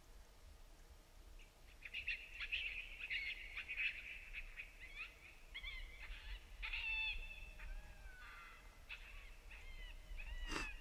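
Coyotes yipping and howling: a chaotic run of many short, high calls that bend up and down in pitch, starting about a second and a half in, with a single sharp click near the end.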